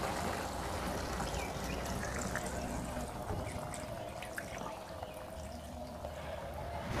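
Coconut milk being poured into a wok of sautéed spices and beef for rendang: a continuous pouring, trickling sound.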